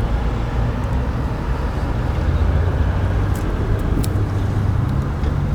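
A motor vehicle's engine running at idle, a steady low hum, with a couple of faint clicks about halfway through.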